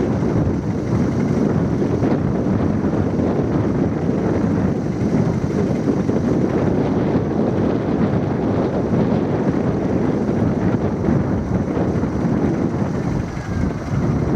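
Jet airliner engines running, mixed with a steady high whine, under heavy wind buffeting on the microphone.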